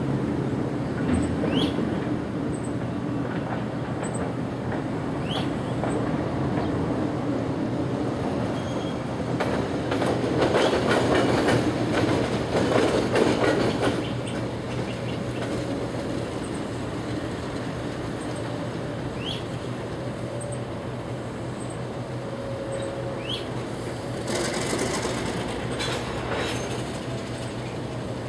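Alco diesel locomotive of the Arkansas & Missouri running with a steady engine drone as it rolls slowly past. Its wheels clatter over the rail joints, loudest a little before the halfway point, and there is a brief high squeal and hiss near the end. Short rising bird chirps are heard a few times.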